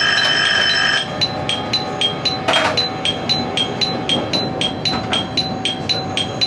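Train cab warning sound: a steady electric bell stops about a second in and becomes an alternating two-tone chime, high and low, about four tones a second. This is the pattern of a Japanese ATS warning bell changing to the chime once the driver acknowledges it. There is one short knock about two and a half seconds in.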